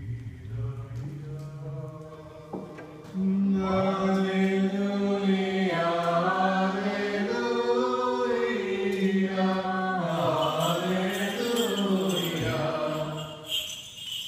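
Orthodox liturgical chant. A lower, quieter voice chants first, then from about three seconds in louder chanting enters with long held notes that move slowly in pitch.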